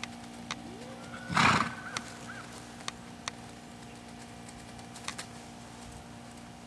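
A horse being ridden gives one loud, short snort about a second and a half in, with a brief wavering high call over it. A few scattered soft knocks, likely hoofbeats on grass, are heard around it.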